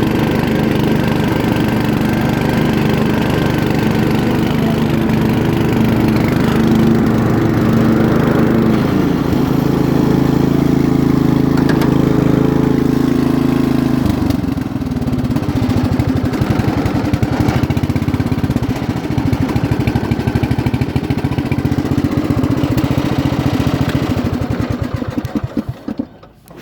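2006 MTD riding lawn mower engine, freshly fitted with a new carburetor, running steadily; its note changes about nine seconds in and again about halfway through. Near the end it winds down and shuts off.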